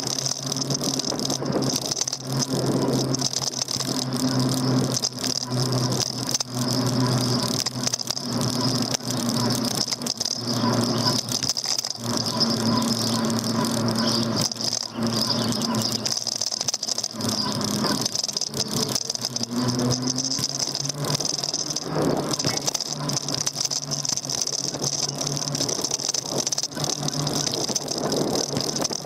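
Daymak Max e-bike rattling and clicking continuously as it rides over the road, picked up by a handlebar-mounted camera. A low electric-motor hum comes and goes underneath.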